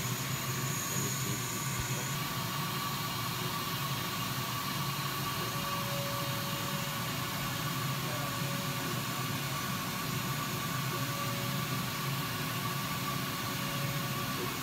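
30 W air-cooled CO2 laser cutter running while it cuts an acrylic sheet: a steady whirr of fans and air with a low hum. A fainter, higher tone comes and goes a few times.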